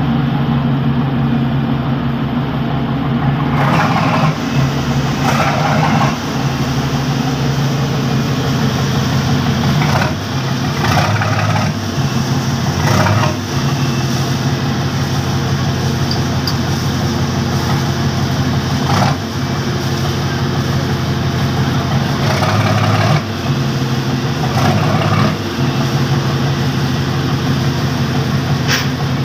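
A ship's engine running steadily with a deep hum that shifts slightly in pitch now and then, with short brighter bursts every few seconds.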